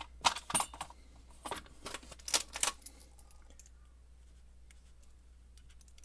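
Small metallic clicks and clinks of a lock cylinder and its back-nut hardware being handled while the locking washer is taken off. They come in quick clusters for about the first three seconds, then stop.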